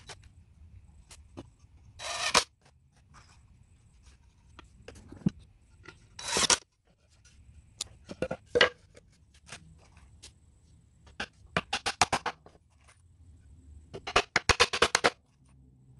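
A cordless drill runs in two short bursts, about 2 s and 6 s in. Near the end come two quick runs of sharp hammer taps on wood.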